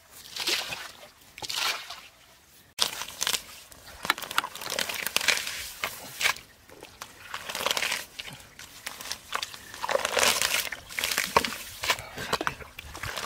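Footsteps through wet grass and shallow mud: irregular rustling, crackling and squelching in uneven bursts. Near the start, a couple of short swishes in shallow muddy water.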